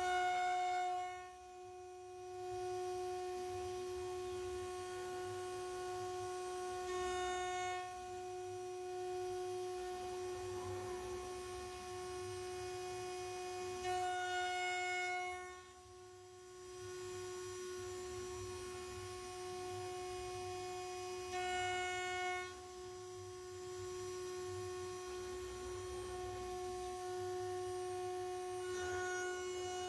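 6040 CNC router spindle whining steadily at high pitch while a 6 mm two-flute end mill mills 6082 aluminium. The cut swells louder and harsher about every seven seconds as the tool loads up on its pass, and briefly drops quieter twice.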